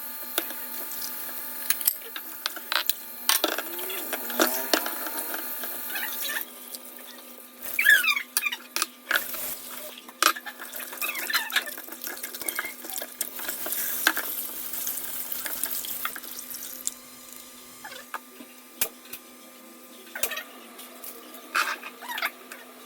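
Kitchen prep at a sink: water running, with scattered clinks and knocks of dishes and utensils and a few short squeaks.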